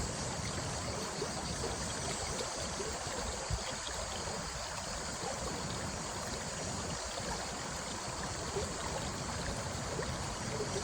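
Running water flowing steadily, a continuous even rush, with one brief low thump about three and a half seconds in.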